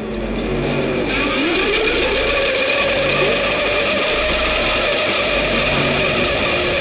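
Soundtrack music: a guitar played through effects, its pitch swooping up about a second in and then holding, over a pulsing low bass.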